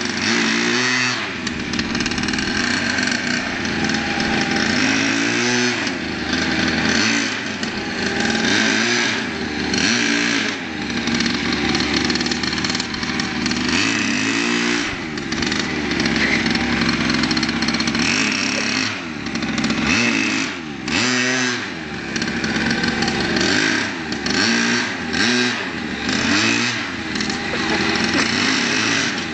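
A pocket bike's small two-stroke engine buzzing as it is ridden, the revs rising and falling again and again as the throttle is opened and eased off. Several times the engine drops briefly toward idle before picking up again.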